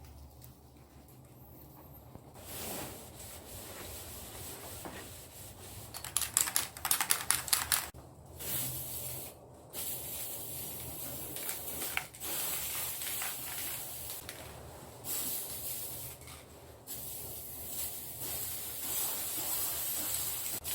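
Hand work rubbing and scraping on wood: a run of quick back-and-forth strokes about six seconds in, then on-and-off scratchy rubbing.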